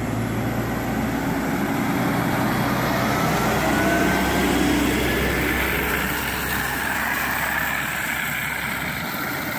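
Backhoe loader's diesel engine running as the machine drives slowly along, towing a light load, with a faint whine that rises slowly in pitch midway.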